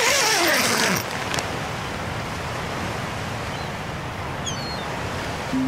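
Steady rush of sea surf. It is louder in the first second, where a falling tone sweeps down through it, and a faint high chirp comes near the end.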